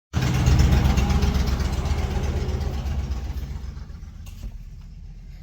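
Motor of cleaning equipment running with a strong low rumble, loud at first and fading over the first four seconds to a lower, steady level.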